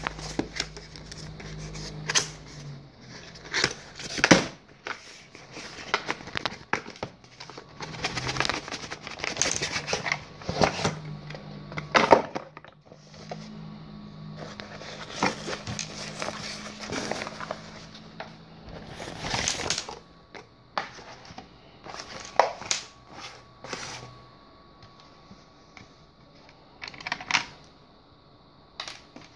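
Handling noise from unboxing a battery charger: irregular clicks, taps and rustles as the cardboard box, drawstring pouch, cable and charger are picked up and set down on the counter.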